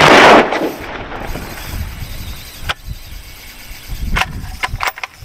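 A single loud shot at a surfacing alligator, most likely a bow loosing a line-tethered bowfishing arrow: one sharp release lasting under half a second, followed by a few faint scattered clicks.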